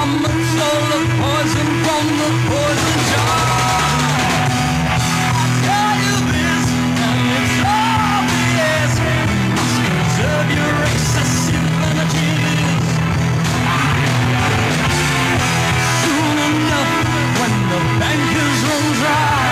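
Live rock band playing: a singer's vocals over a drum kit and guitar, at a steady loud level.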